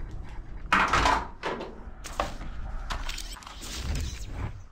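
Plastic toy guns knocking and clattering against each other as one is pulled out of a heaped pile and handled, with the loudest clatter about a second in.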